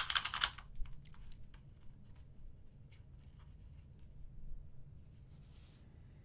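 Plastic clacking of a non-magnetic QiYi 2x2 speed cube being turned quickly for about half a second, then faint scattered clicks as the cube is handled and set down.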